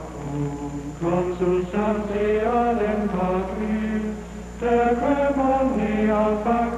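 Male voices singing liturgical chant: a single melodic line in sung phrases, with a short break between phrases about two-thirds of the way through.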